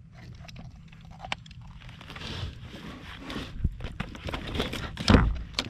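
Handling noises as a redfish is worked free of a rubber-mesh landing net in a kayak: scattered clicks and rustling rubs, with a loud thump about five seconds in.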